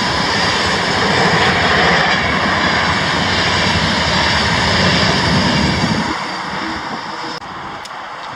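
Passenger coaches rolling past close by: a steady, loud rush of wheels on rail and air. The noise falls away about six seconds in as the train draws off, leaving quieter open-air background near the end.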